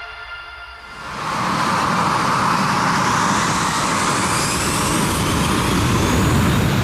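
Music cuts out about a second in, giving way to an RC jet plane's battery-powered motor running loud and steady as a rushing whoosh, with a faint high whine rising in pitch midway.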